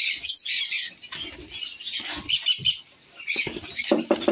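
Caged lovebirds chirping and squawking in quick high bursts, with wings flapping, as a hand reaches into their breeding cage. Near the end a lower, rapidly pulsing call starts.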